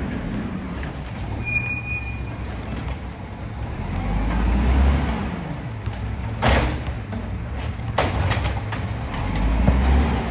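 Diesel engine of a Volvo WX64 garbage truck with an Amrep Octo automated side-loader running, rising twice in revs as if powering the hydraulic arm, with two sharp bangs between the rises.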